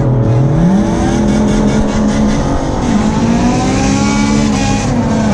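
Drag-racing car engine at high revs: its pitch climbs sharply in the first second, holds, dips briefly about three seconds in as if at a gear change, then climbs again.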